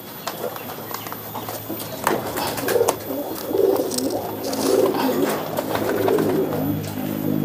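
Domestic pigeons cooing, several low coos overlapping from about two seconds in, with scattered light clicks and knocks from the plastic crate being handled.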